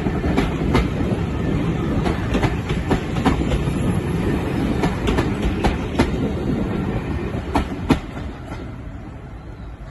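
Train of passenger coaches rolling past at close range, wheels clicking over the rail joints in an irregular clickety-clack. The sound fades away as the last coach passes near the end.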